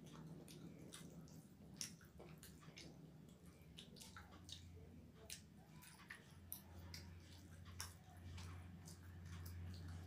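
Faint eating sounds: wet clicks of chewing and lip smacking, with soft squishing of rice and curry being mixed by hand.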